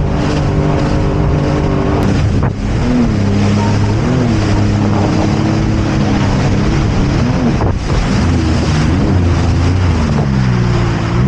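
Jet ski engine running under way, its note rising and falling with the throttle and dipping briefly about two and a half seconds in and again near eight seconds, with wind on the microphone.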